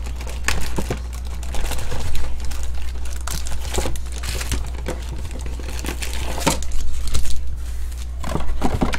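Foil trading-card packs crinkling and rustling as they are pulled out of a cardboard box and stacked by hand, over a steady low hum.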